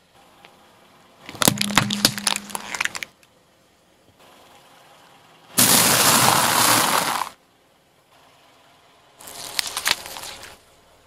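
Hard, crunchy objects cracking and breaking under a car tyre: two runs of sharp crackles, each a second or two long. Between them comes a loud, even rushing noise lasting about a second and a half.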